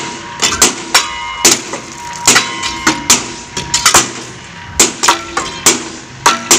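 Several pickaxes striking a mock railway track and the gravel around it: a rapid, irregular series of sharp knocks, several a second, with a short lull about four seconds in.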